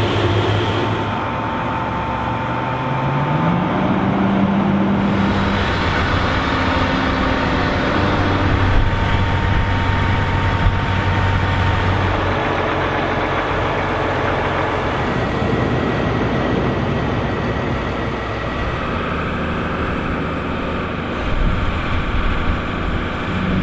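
Heavy tractor engines working hard under load, the engine note rising about three seconds in as one is revved up, with a dense rushing noise throughout.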